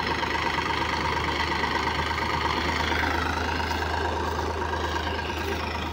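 Massey Ferguson tractor's diesel engine running steadily as it pulls a trolley loaded with paddy.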